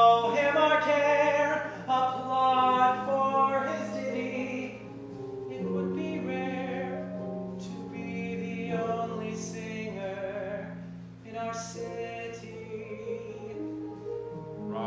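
A man singing a slow, held-note song from a stage musical over sustained instrumental accompaniment, loudest at the start.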